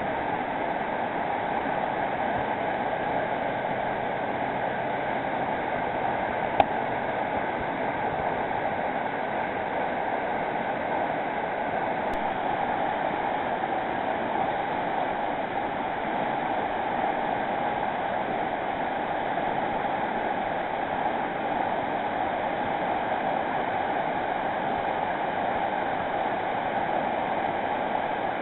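South Platte River whitewater rushing steadily, with one sharp click about a quarter of the way in.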